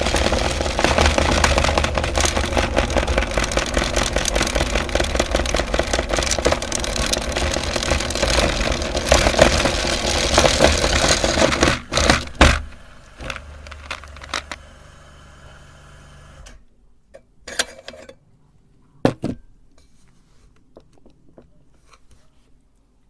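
Meat grinder's motor running loud while it crunches through candy, a dense crackle of breaking pieces over the motor hum. About twelve seconds in the crunching stops with a sharp knock, the motor runs on lighter for a few seconds and then cuts off, followed by a few separate knocks.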